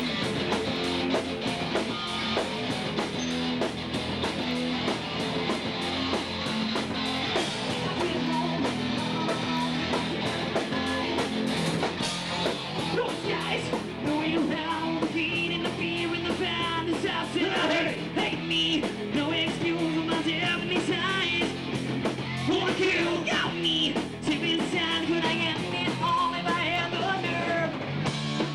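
Live rock band playing loud and fast: electric guitar, bass and drums with a steady fast beat, and a voice singing over it from about halfway through.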